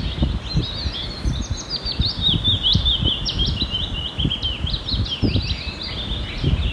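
Many small birds chirping rapidly at once, short high chirps overlapping almost without a break, with wind buffeting the microphone.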